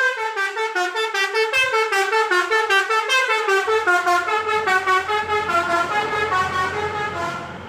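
A bus's multi-tone telolet horn plays a rapid stepped melody of short notes, about six or seven a second, and stops near the end. A low engine rumble comes in about halfway through.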